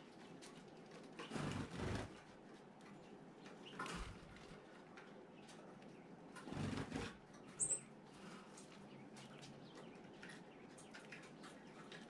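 Gouldian finches' wings fluttering in three short, soft bursts, the last one followed by a single brief high chirp.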